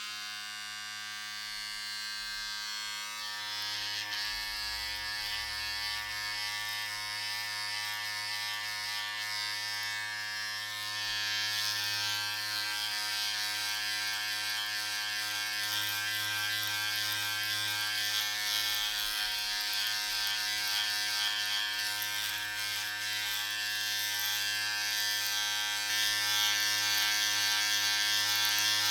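Electric razor shaving: a steady motor buzz with a rasping hiss on top, switched on at the start. The hiss brightens about three seconds in and the whole sound gets louder about twelve seconds in.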